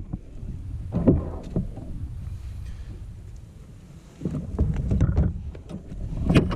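Knocks and handling noises aboard a fishing kayak over a steady low rumble, louder in uneven bursts about a second in and again in the second half.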